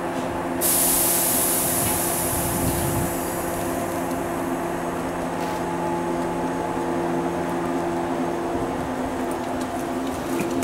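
Shinano Railway 169 series electric multiple unit standing at the platform with a steady multi-tone hum from its onboard equipment. About half a second in comes a sudden loud hiss of compressed air that fades over a few seconds, as the train readies to depart.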